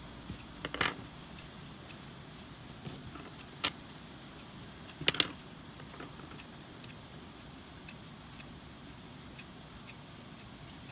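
Coloured pencils being handled and clinking against each other: a few sharp clicks, the loudest a quick double click about five seconds in, over a faint steady hiss.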